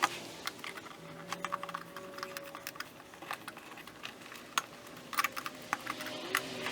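Irregular small clicks and ticks of plastic tabs being pried up to release a trim piece from a vinyl door panel.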